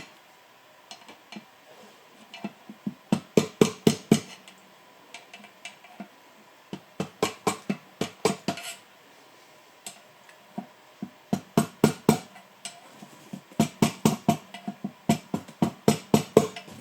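Hand ratchet wrench clicking in short runs of rapid metallic clicks, five runs with pauses between, as bolts holding a BV43 turbo core to the exhaust manifold are run in.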